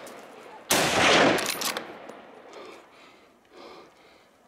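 A single gunshot from a hunting gun about a second in, its report echoing and fading away over about a second.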